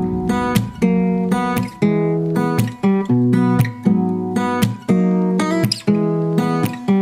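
Background music: acoustic guitar strummed in a steady rhythm of chords.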